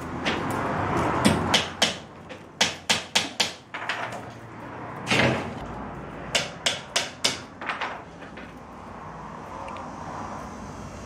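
Willow rods being woven into a basket: a rustling swish as a rod is drawn through the weave, then two quick runs of sharp clicks as the rods are pressed in and knock against the upright stakes.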